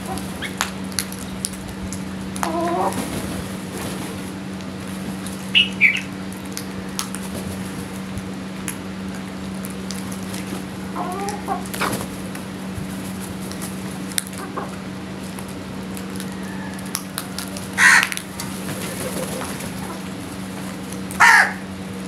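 House crows cawing and hens clucking now and then as they feed on scattered grain. The loudest calls come about 18 seconds in and again near the end, over a steady low hum.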